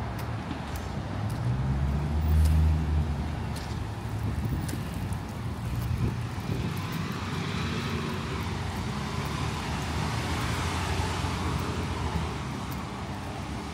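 Street traffic: a vehicle's low engine rumble swells to its loudest about two seconds in, then the rising and fading hiss of cars passing by.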